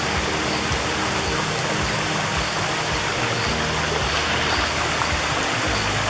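A small forest stream running over rocks, a steady, even rush of water. Soft background music with low held notes plays underneath.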